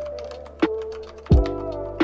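Music with a steady beat: a deep kick drum about every 1.3 seconds under sustained chords, over fast, light clicking.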